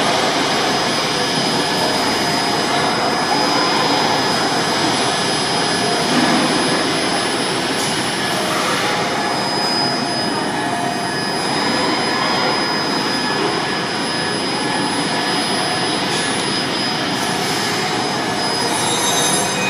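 Steady machine noise of an automated warehouse floor where robot arms and AGVs are at work: an even rushing hum with faint, thin high whines on top and no distinct knocks.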